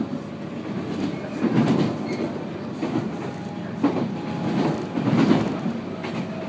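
JR 719 series electric train running at speed, heard from inside the passenger car: steady wheel and track noise, with a few louder clacks as the wheels pass over rail joints.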